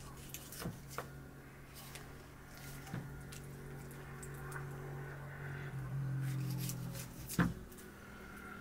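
Small knife cutting raw liver held in the hand: soft wet handling and slicing with a few sharp clicks, the loudest about seven seconds in, over a steady low hum.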